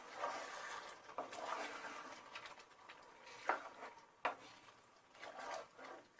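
A spatula scraping and clinking in a pan as marinated chicken is stirred while it fries on high flame, with two sharper knocks about three and a half and four seconds in.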